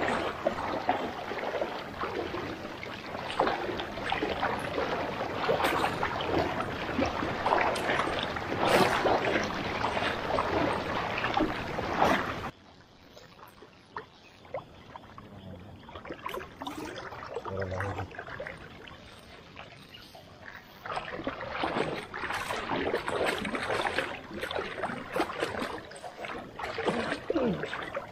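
Water sloshing and splashing around the legs of a person wading through a river while paying out a floating net. About halfway through the splashing drops suddenly to a quieter stretch, then picks up again near the end.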